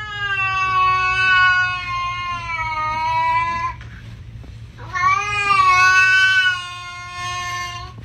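A cat yowling: two long, drawn-out calls, the second starting about five seconds in.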